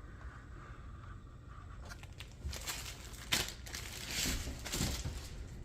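Packaging being handled, crinkling and rustling irregularly from about two seconds in, with a sharp click just after three seconds.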